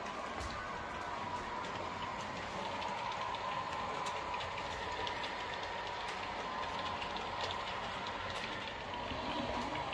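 H0-scale model train running along the track: a steady motor whine with scattered light clicking from the wheels on the rails, getting a little louder near the end.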